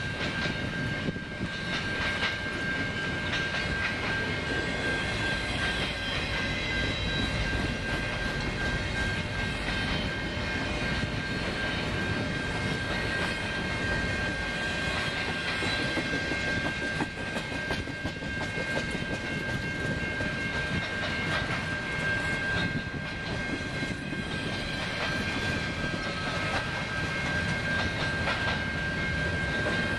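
Freight train of empty intermodal well cars rolling past: a steady rumble and clatter of steel wheels on rail, with a steady high-pitched squeal running through it.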